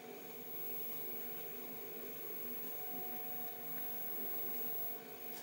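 Faint steady hum and hiss of room tone, with a few constant tones and no distinct knocks or handling sounds.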